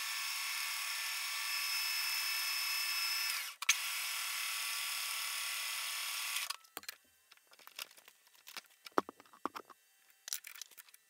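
Metal lathe running with a steady high whine. It cuts out briefly with a click about a third of the way in, runs again, then stops about two-thirds through, followed by scattered light clicks and knocks.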